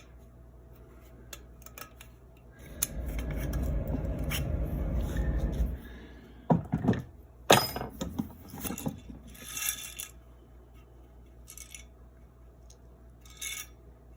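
Small metal parts of a Daisy 105 Buck BB gun being worked apart by hand. A few seconds of scraping are followed by a run of sharp metallic clicks and knocks, the loudest a little past the middle, and then a few lighter clicks.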